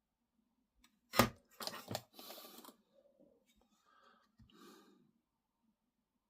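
Workbench handling noises: a sharp plastic click about a second in, then a second or so of rustling and scraping, and fainter shuffling a few seconds later, as small plastic kit parts and tools are picked up and moved.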